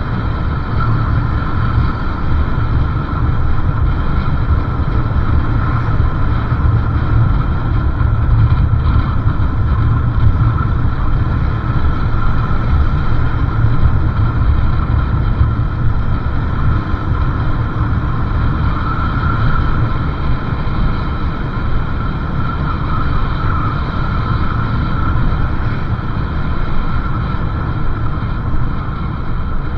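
Motorcycle riding along a road: steady engine and road noise, with wind buffeting on the microphone.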